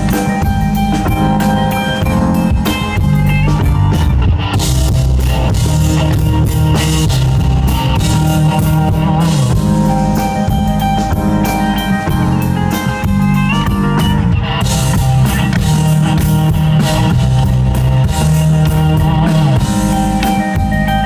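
Live rock band playing an instrumental passage: electric guitar lines over bass and a drum kit.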